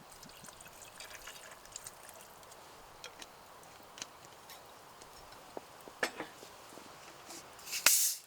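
Scattered light clicks and taps, with a few louder knocks about six seconds in and a brief louder rush of noise near the end that cuts off suddenly.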